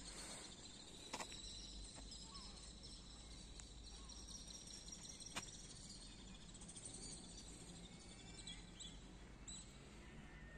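Faint birds chirping with quiet outdoor background noise, and two short clicks, about a second in and about five seconds in.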